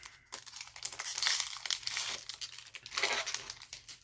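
Foil wrapper of a Cardfight!! Vanguard booster pack crinkling in several bursts as it is torn open and handled.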